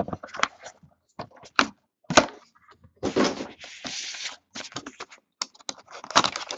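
A utility knife cutting the seal on a small cardboard box: scattered sharp clicks and knocks as the box is turned and handled, and a couple of longer scraping cuts a little past halfway.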